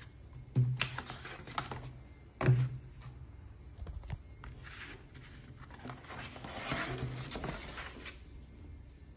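Sheets of white card and paper being handled and set down on a wooden table: two sharp taps in the first few seconds, a few lighter ticks, then a longer papery rustle and slide toward the end.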